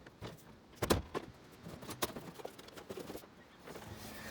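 A few light knocks and clunks of items being handled, the loudest about a second in and another about two seconds in.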